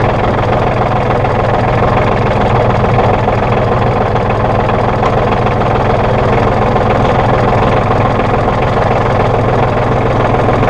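Diesel engine of a 1998 New Holland Boomer 1925 compact tractor running steadily.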